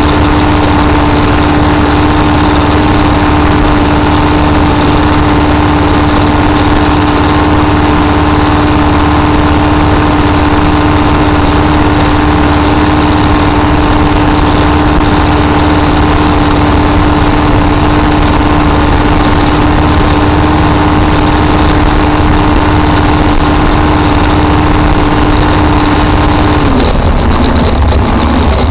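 Supercharged Ford engine of a blown flat-bottom boat running hard at a steady speed, its note holding one pitch. Near the end the note drops as the engine comes off the throttle.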